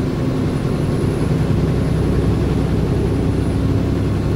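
Steady drone of a tractor-trailer's diesel engine and tyres on the road, heard inside the truck's cab while cruising on the highway.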